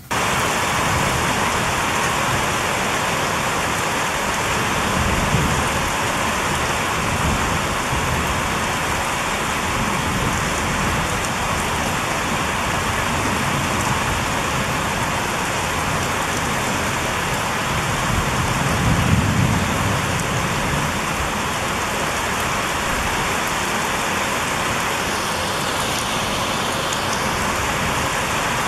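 Heavy rain pouring down steadily, with a low rumble of thunder swelling about five seconds in and again around nineteen seconds.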